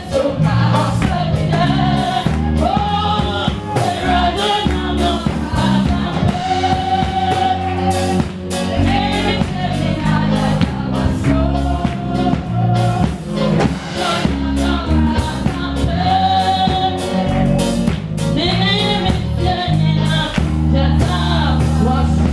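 Gospel song: singing over instrumental backing with a steady bass and beat.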